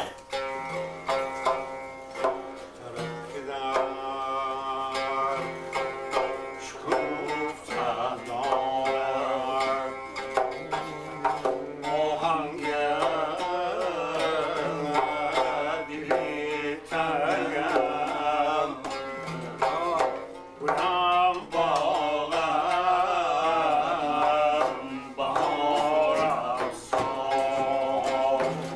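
A man singing a folk song with a wavering, ornamented melody, accompanied by a long-necked fretted lute being plucked and a steady percussion beat. The singing comes in a few seconds in, over the lute playing.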